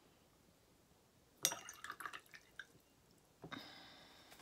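Watercolor brush rinsed in a glass water jar: a quick cluster of clinks and splashes about a second and a half in, then a single clink against glass or ceramic that rings briefly near the end.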